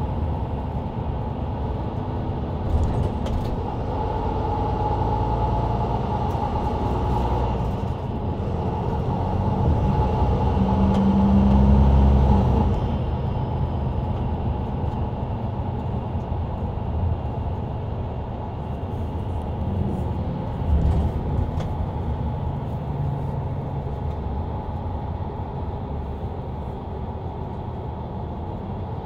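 Mercedes-Benz Citaro C2 LE bus under way, heard inside the cabin from the rear seats: steady engine drone and road noise from the ZF EcoLife automatic drivetrain. The engine note swells for several seconds, then drops back suddenly before the middle. A few brief knocks come through the cabin.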